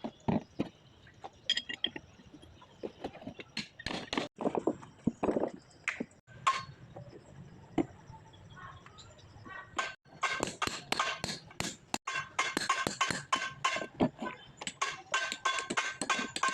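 Metal tools knocking and clinking against steel parts, scattered at first, then about ten seconds in a fast run of ringing metallic taps, several a second, until near the end.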